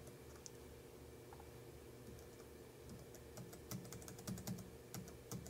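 Faint, irregular clicks of a computer keyboard and mouse, over a low steady room hum, coming more often in the second half.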